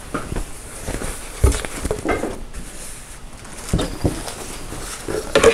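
Fabric rustling and soft, irregular knocks as quilted padded doll mats are picked up, unfolded and laid onto the bunks of a doll bunk bed, with a sharper knock about a second and a half in and another near the end.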